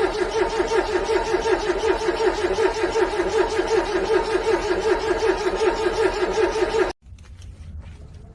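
Cold car engine cranking over on its starter motor with an even, rhythmic pulse and not catching. It stops abruptly about seven seconds in, leaving only faint background sound.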